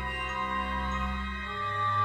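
Eerie ambient music: sustained synthesizer pads holding chords, with the bass note shifting about one and a half seconds in.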